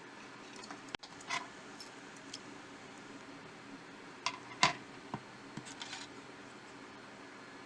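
A handful of small, sharp clicks and taps from repair tools and smartphone parts being handled, over a steady background hiss; the loudest click comes about four and a half seconds in.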